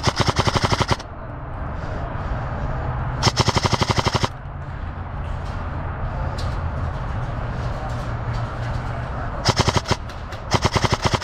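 Airsoft gun firing on full auto in four bursts of rapid, evenly spaced shots: one about a second long at the start, another about three seconds in, and two shorter bursts near the end.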